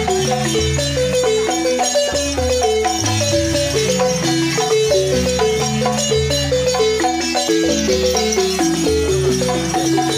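Several balafons, West African wooden-keyed xylophones, played together in a fast, continuous run of struck notes, with low bass notes under the higher melodic lines.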